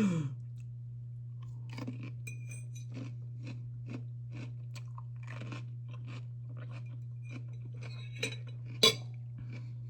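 Dill pickles being chewed close to the microphone: a run of wet, crisp crunches every fraction of a second, with a sharper crunch or click near the end, over a steady low hum.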